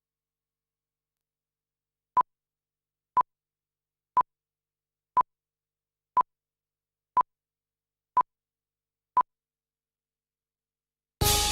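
Eight short electronic beeps of one steady mid pitch, evenly spaced one a second, in otherwise dead silence; music starts abruptly at the very end.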